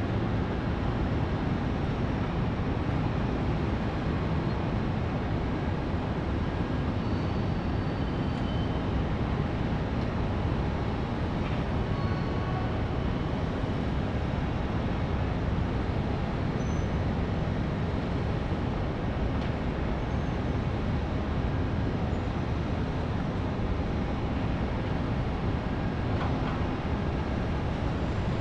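Distant city traffic: a steady, low rumble of many vehicles blended together, with a few faint brief high chirps or squeals now and then.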